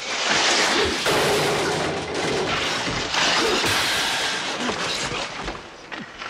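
Ice-hockey skate blades scraping and hissing across the rink, mixed with sharp knocks and thuds from the struggle on the ice; it eases off shortly before the end.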